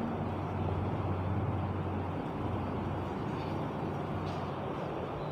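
Steady background room noise: an even hiss with a low hum that drops away about two seconds in.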